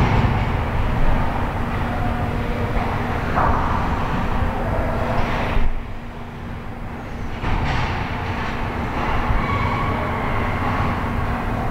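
Ice rink ambience during ice hockey play: a steady low rumble with a constant hum, and brief swells of scraping noise from the ice. The noise drops for a couple of seconds about six seconds in.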